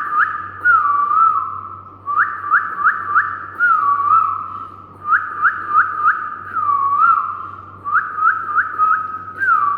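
A man whistling an imitation of the oriental magpie-robin's (doyel's) song: phrases of three or four quick rising notes followed by a lower wavering note, repeated about every three seconds.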